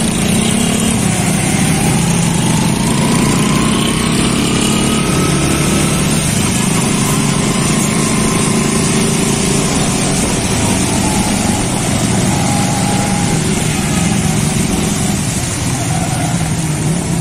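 Small motorcycle engine running while riding in traffic on a wet road, with steady tyre and road noise; its pitch rises over the first few seconds as it speeds up.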